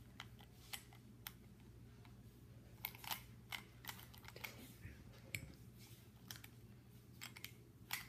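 A plastic 3x3 speed cube being turned by hand: faint, irregular clicks and clacks of its layers turning.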